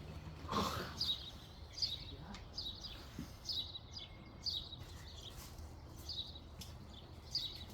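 A bird calling over and over, a short falling chirp about once a second. A brief rustling burst about half a second in.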